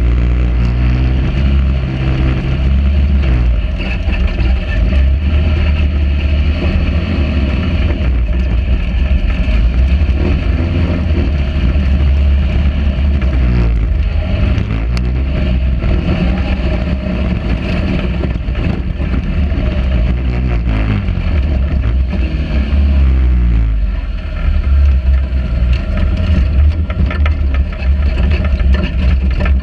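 Sand rail dune buggy engine running under load, its revs rising and falling repeatedly as it drives over the dunes, with wind rushing over the onboard microphone.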